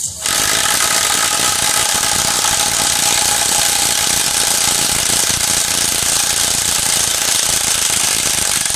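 Cordless 18V impact wrench (YATO YT-82930) hammering continuously, its rapid impacts driving a long carpentry screw into a solid timber beam without a pilot hole. It starts a moment in.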